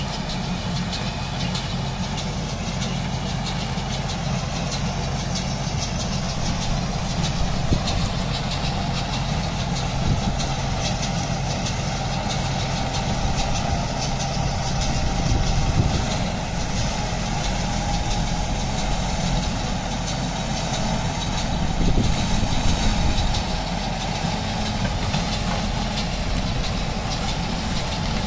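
John Deere tractor's diesel engine running steadily while driving a small square baler that is picking up and baling straw, with the baler's mechanism working along with it. The sound swells briefly a few times.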